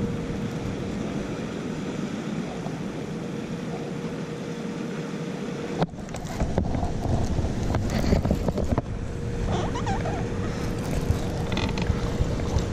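Wind buffeting the microphone over moving water, with a steady high hum from the boat's electric trolling motor; the hum stops about six seconds in and comes back a few seconds later. A few sharp clicks of rod and reel handling fall in the gap.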